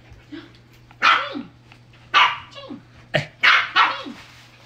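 Pembroke Welsh corgi puppies barking: short, high barks about a second apart, each dropping in pitch at its end, with two coming close together near the end.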